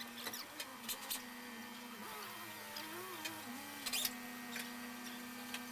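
A few sharp metallic clicks and clinks of hand tools working on a diesel engine's cylinder head and valve train, over a steady background hum.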